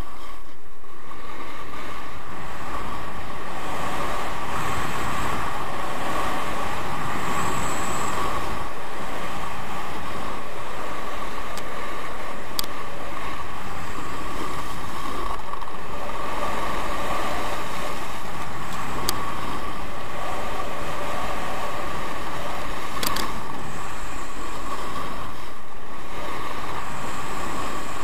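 Skis sliding at speed over groomed snow, with wind rushing over the microphone: a loud, steady rushing noise with a few short ticks.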